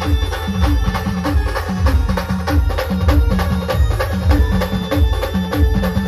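Band music: heavy drum beats several times a second drive a repeating low melody of short notes, with sharper percussion strokes over the top.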